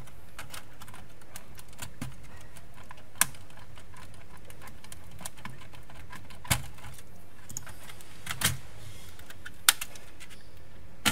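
Sharp plastic clicks and taps from hands handling and fitting parts of a PlayStation 4 Slim's disc drive mechanism: a handful of separate clicks, a second or more apart, with fainter ticks between, over steady background noise.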